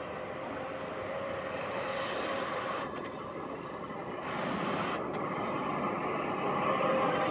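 Keihan 2200 series electric train running in toward the station, a steady rumble of wheels and motors that grows louder, with a faint whine coming in near the end.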